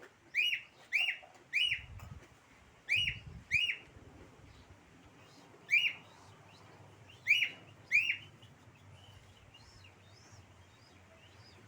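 A bird giving short, sharp chirps, about eight loud ones spaced irregularly over the first eight seconds, then only fainter calls.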